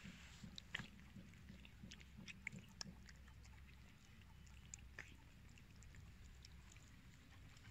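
Two cats chewing wet cat food chunks from a plate: faint, scattered wet clicks of eating over a low steady rumble.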